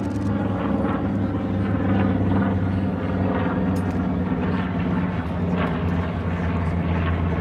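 Grumman TBM Avenger's Wright R-2600 fourteen-cylinder radial engine and propeller running steadily through a low flypast, the pitch stepping down a little about five seconds in.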